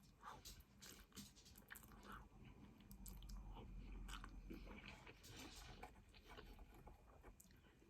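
Faint close-up chewing of a mouthful of egg noodles, with small wet mouth clicks scattered throughout and a slightly louder stretch of chewing a few seconds in.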